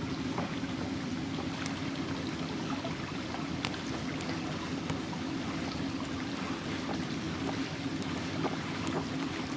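Steady rush of a flowing stream, with a few faint sharp clicks scattered through it.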